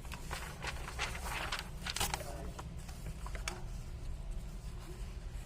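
Faint rustling and scattered light clicks over a steady low hum: small handling noises near the microphone.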